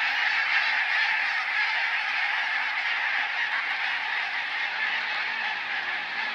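A large flock of barnacle geese calling in flight: many overlapping honks merge into a dense, continuous clamour that eases slightly toward the end.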